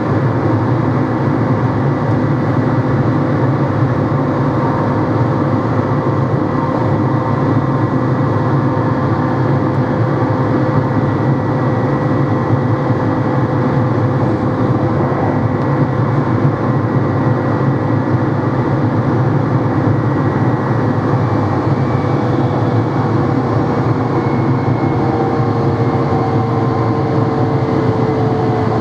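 NMBS/SNCB AM96 electric multiple unit's traction motors running, a steady rumble with a whine on top. Near the end the whine slowly falls in pitch.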